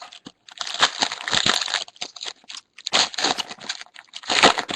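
Foil wrapper of a trading-card pack crinkling as it is torn open and handled, in three bursts.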